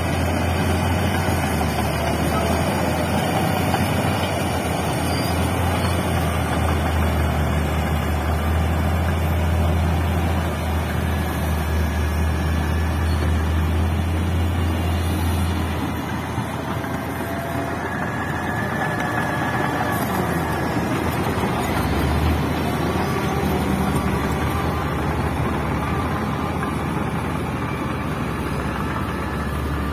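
Heavy diesel engines of mining machinery, a large mining dump truck driving with a bulldozer close by, running with a deep, steady drone. The drone eases about halfway through and comes back strongly a few seconds later.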